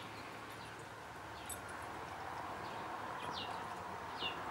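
Dogs digging and scratching in dry, stony dirt, a low, steady scuffling noise, with a few short bird chirps falling in pitch over it.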